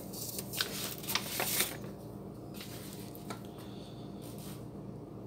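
A paper pamphlet being picked up off a countertop and moved, rustling and crinkling for a little over a second near the start, with a few light clicks. A faint steady hum underneath.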